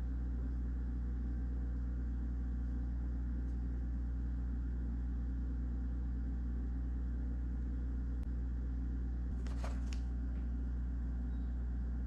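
Steady low mechanical hum at a constant pitch and level, with two faint short sounds near the end.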